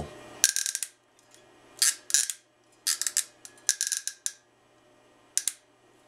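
Built-in cable stripper of a Platinum Tools crimp tool scraping around the jacket of a CAT6 cable as the tool is worked around it. About five short, scratchy strokes as the blade cuts the jacket for stripping.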